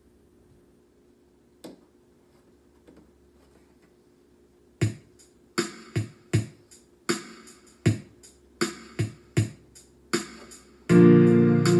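Near silence for the first few seconds, then a backing track begins: a string of sharp drum-machine hits about five seconds in, unevenly spaced, and then keyboards enter near the end with the full accompaniment.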